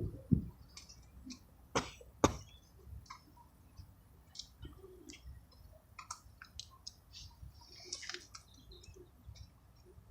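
Pigeons and doves pecking at rice on the ground: irregular light ticks and taps, with a few sharper knocks at the start and about two seconds in.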